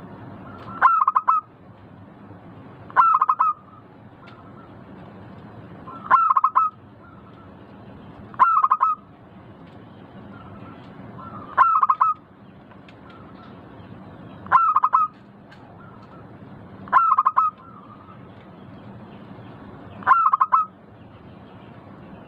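Zebra dove (perkutut) cooing: a short phrase of quick notes, repeated eight times about every two and a half to three seconds, over a steady low hiss.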